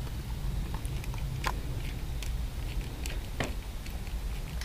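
Light metallic clicks, two of them about two seconds apart, from handling a .22 pen gun and its suppressor, over a low steady rumble of wind on the microphone. No shot is fired.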